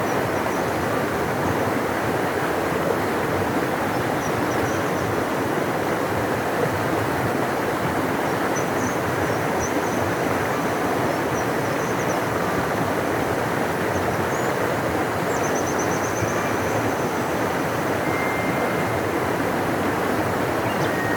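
A large river rushing, a steady deep roar of moving water. Faint high bird chirps come through now and then over it.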